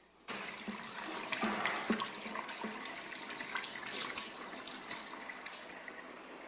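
Water running from a tap into a washbasin as hands are washed under it, with a few light clicks and knocks. It starts abruptly just after the start.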